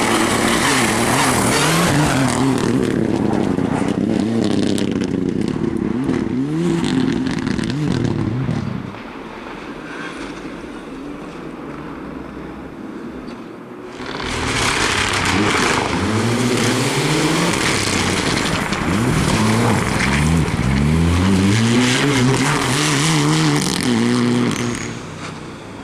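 Rally car engines revving hard, the pitch climbing and dropping back again and again through gear changes as the cars are driven flat out. About nine seconds in the engine sound falls away to a quieter stretch. About fourteen seconds in, another burst of hard revving starts abruptly.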